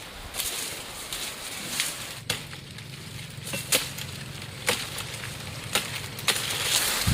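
Sharp chopping strikes, a blade cutting through sugarcane stalks, coming about once a second from about two seconds in.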